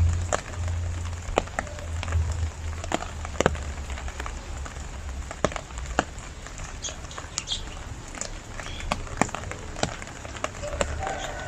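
Rain falling, an even hiss with scattered sharp drip ticks, over a steady low hum.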